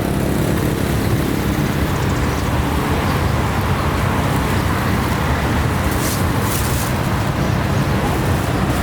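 Steady road traffic with engines humming and passing, with a couple of brief hisses about six seconds in.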